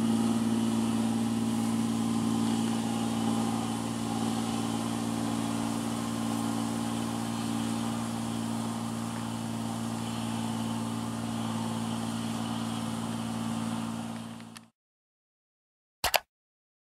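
Rice combine harvester's diesel engine running steadily while harvesting, cutting off abruptly shortly before the end. A single brief click follows near the end.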